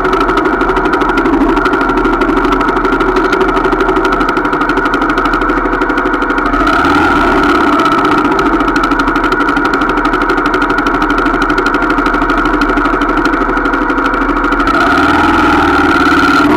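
Small 125 cc trail motorcycle engine idling steadily, the note rising slightly near the end as the bike gets ready to pull away.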